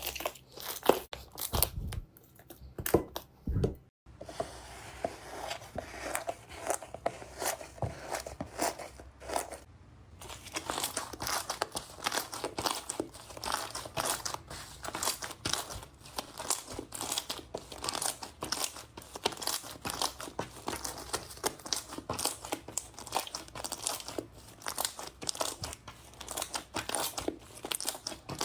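Slime being squeezed and pressed by hand, making dense rapid crackling pops. There are a few heavier knocks in the first few seconds and a softer stretch before the crackling picks up about ten seconds in.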